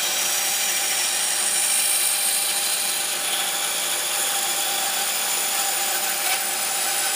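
Bandsaw running steadily, its blade cutting through a block of wood.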